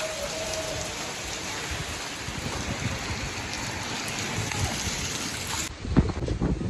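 Rain falling steadily onto flooded brick paving, an even hiss of drops and splashing water. About three quarters of the way through it cuts off abruptly into low, uneven rumbling and knocks on the microphone.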